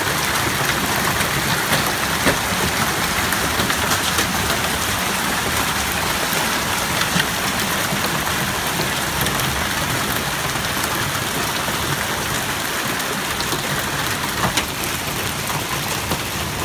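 Heavy hail falling: a dense, steady hiss of hailstones hitting the street, lawns and parked cars, with scattered sharper clicks of single stones striking.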